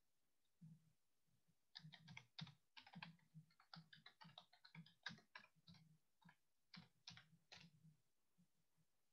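Faint typing on a computer keyboard: a quick, uneven run of key clicks lasting about six seconds, starting about two seconds in and stopping near the end.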